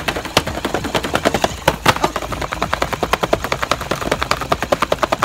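Rapid, uneven clicking, several clicks a second, from the battery-powered mechanisms of Chubby Puppies bumbling plush toys as they waddle.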